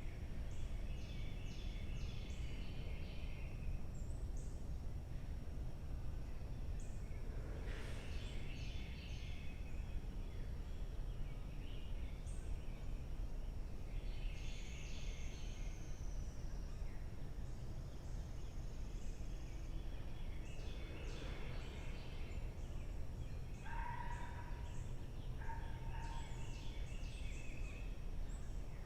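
Birds calling outdoors: short clusters of high chirps recur every few seconds, with a few lower whistled notes a little past the middle, over a steady low rumble and a thin, steady high tone.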